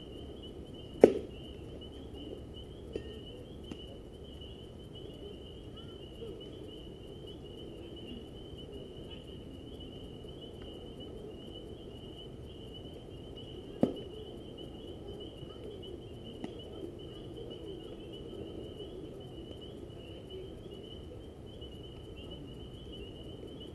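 Steady high chirring of insects in the evening, with two sharp pops of a baseball smacking into a leather glove, the louder one about a second in and another about fourteen seconds in.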